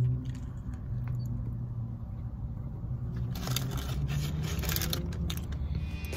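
Steady low hum of a car idling, heard from inside the cabin. Close crinkling and rustling come in about three seconds in and stop shortly before the end.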